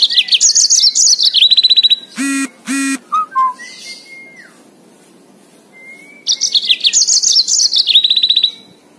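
Yellow-fronted canary singing two loud phrases of rapid, high-pitched notes, each ending in a fast even trill. Between the phrases come two short buzzy notes about two and a half seconds in, then a few soft chirps.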